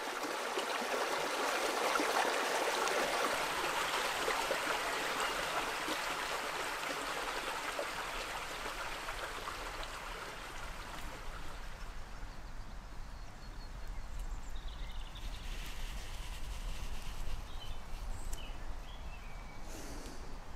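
Woodland stream running over rocks, a steady rushing that is strongest for the first several seconds and then grows softer, with a few faint chirps in the second half.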